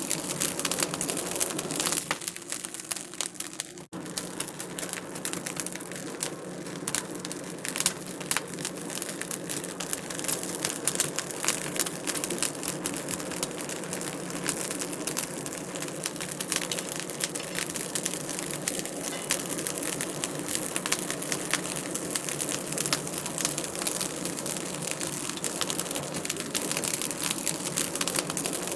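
Wood fire crackling in a fireplace: a steady stream of small pops and snaps, with a brief drop-out about four seconds in.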